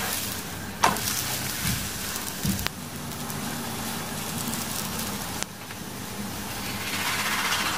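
Oiled whole-wheat paratha sizzling on a hot flat nonstick tawa: a steady frying hiss that grows a little louder near the end, with a few sharp clicks of the spoon and spatula against the pan.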